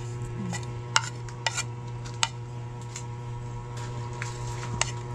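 A plastic spoon scraping and tapping on a ceramic plate, with several sharp clicks spread through, as minced garlic and ginger are pushed off into a wok. A steady low hum runs underneath.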